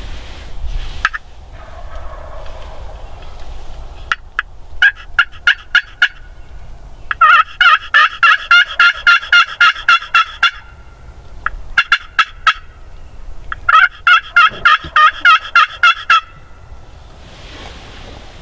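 Loud turkey calling: four runs of evenly spaced, pitched notes at about three to four a second, with short pauses between the runs.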